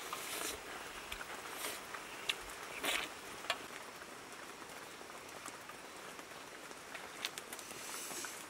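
Scattered soft clicks, small wet tearing sounds and rustles as boiled chicken is pulled apart by hand over a pot of broth, after a wooden spoon stirs the pot. Underneath is a steady outdoor hiss.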